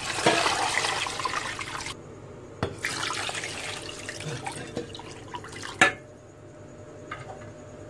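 Water pouring into a cooking pot over large pieces of camel meat and bone, in two pours, the second ending with a sharp knock just before six seconds in.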